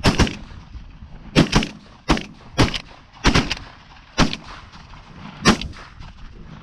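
Shotguns firing at a flock of Canada geese: about nine sharp reports over five and a half seconds, some in quick pairs.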